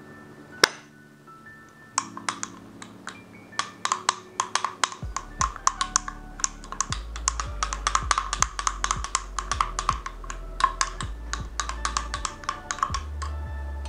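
Long metal bar spoon stirring thick cocoa paste in a small glass beaker, clinking rapidly and unevenly against the glass from about two seconds in, after a single sharp tap near the start. Background music plays throughout.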